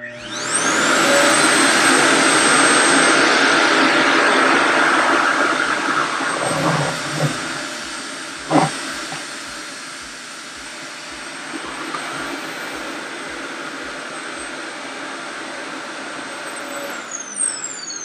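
RevAir reverse-air hair dryer's suction motor spinning up with a rising whine, then running steadily with a loud rush of air drawn through its hose while hair is pulled into the wand. It is switched off about a second before the end, the whine falling as the motor spins down. There is one brief knock about halfway through.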